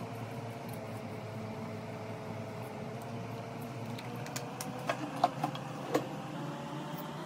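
Steady electric-motor hum of a room appliance, with a few light clicks about four to six seconds in, the sharpest near the five-second mark.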